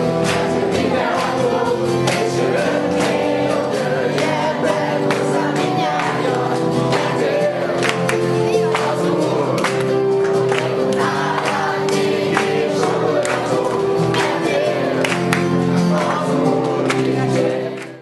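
A group of children singing a song together with electronic keyboard accompaniment and a steady beat of hand claps. The song cuts off abruptly at the end.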